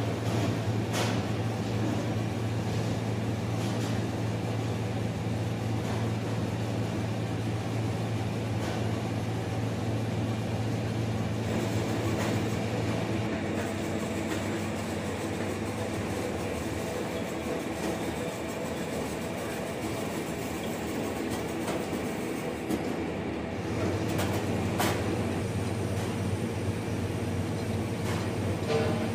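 Soap-making machinery running steadily: a soap roller mill turning and scraping off soap ribbons onto a belt conveyor, over a low motor hum. The hum drops away about halfway through and comes back about ten seconds later, with a few faint knocks.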